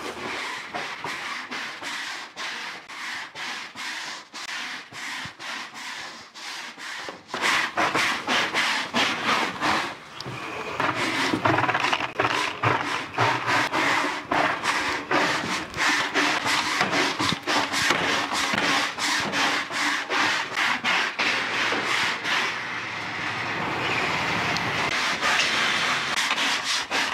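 Stiff push broom scrubbing a wet wooden kennel floor: a steady run of quick rasping strokes, several a second, louder from about seven seconds in.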